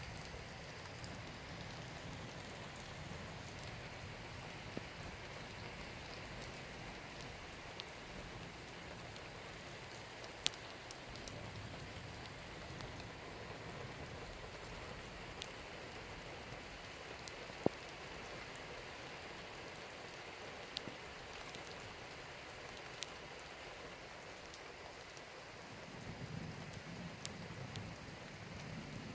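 Steady rain falling in a thunderstorm, a continuous hiss with a few sharp ticks of drops landing close by. A low rumble of distant thunder swells near the end.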